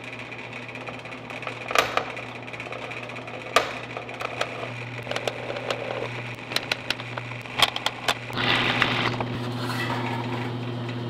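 Benchtop drill press motor running with a steady hum while its bit is fed into a steel plate, with scattered sharp clicks. From about eight seconds in a louder, rougher cutting noise joins it as the bit bites into the metal.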